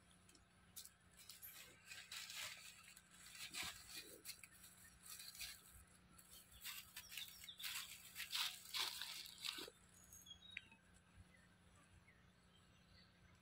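Macaques moving and foraging through dry leaf litter: irregular rustling and crackling of dry leaves, in bursts that die away about ten seconds in.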